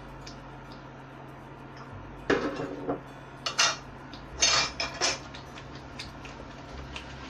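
Kitchenware clattering: several sharp clinks and knocks of a bowl and utensils being handled, in quick clusters about two, three and a half, and four and a half to five seconds in.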